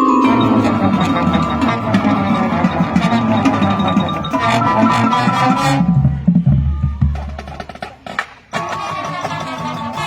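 High school marching band and its percussion playing a field show, busy rhythmic percussion over the winds. About eight seconds in the music drops off briefly, then comes back with held chords.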